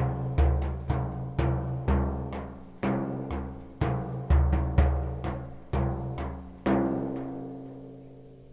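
Deep, ringing drum notes struck about two times a second at a few different pitches, about fifteen strikes in all; the last one, a little after six and a half seconds in, rings on and slowly fades.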